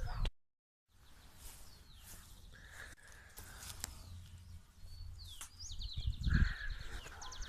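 Rural outdoor ambience: birds chirping in short high calls over a low steady hum, with a fast, even trill near the end. A brief dropout to silence comes just after the start.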